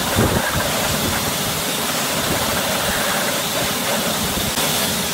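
Pressure washer jet blasting water onto a chrome wheel and tyre, rinsing off wheel cleaner: a loud, steady spray hiss that cuts off abruptly at the end.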